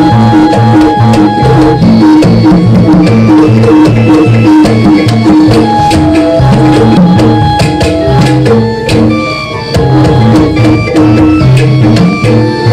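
Live jaranan gamelan accompaniment: kendang hand drums beating a steady rhythm under a melody of held notes.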